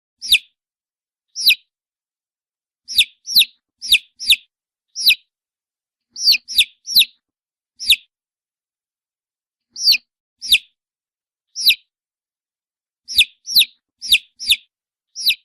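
Baby chick peeping: short, high calls that each fall sharply in pitch, coming singly or in quick runs of two to four with clean silence between them.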